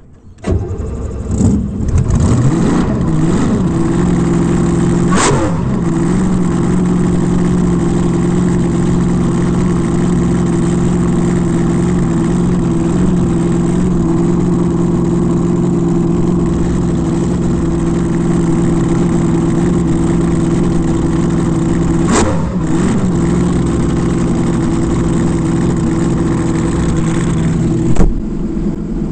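Alcohol-fuelled drag boat engine firing up just after the start, with a few quick rising and falling revs as it catches, then idling steadily with an even, deep note. Twice during the idle there is a short sharp blip.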